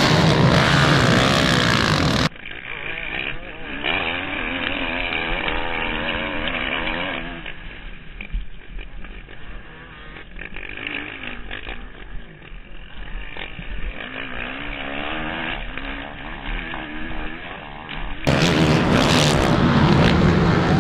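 Motocross dirt bike engines. After a loud opening, the sound turns quieter and duller about two seconds in: a single bike's engine revving up and down, rising and falling in pitch through the gears on a climb. Near the end it cuts back to louder, fuller engine sound from bikes on the track.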